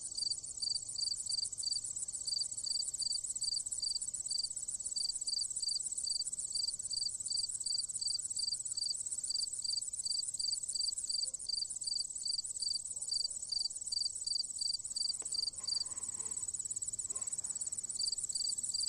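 Crickets chirping in grass: a steady, very high trill with a lower chirp repeating about three times a second. The chirp pauses for a couple of seconds near the end before starting again.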